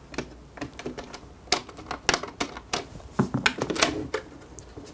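Irregular clicks and light knocks of hard plastic and small metal screws being handled as the bottom screws of an EcoFlow R600 power station's plastic case are taken out and the unit is lifted and turned.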